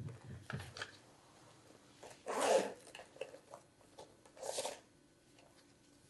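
A handbag being handled and unzipped: two short rasping bursts of zip and rustle, the louder about two seconds in and another about four and a half seconds in, with small knocks and clicks between them.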